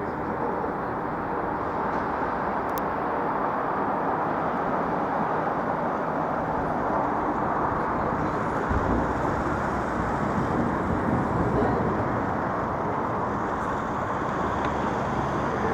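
Steady road-traffic noise: a continuous rumble and hiss with no distinct bangs.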